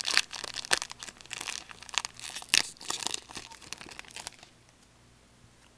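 Wrapper of a hockey card pack crinkling and crackling as it is handled and opened, stopping about four and a half seconds in.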